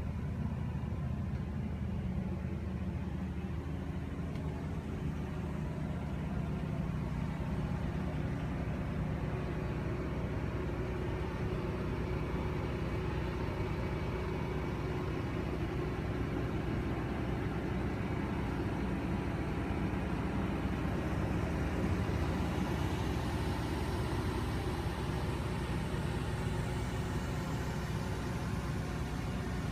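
A steady low mechanical rumble heard inside a motorhome cabin, unchanging throughout, with no speech.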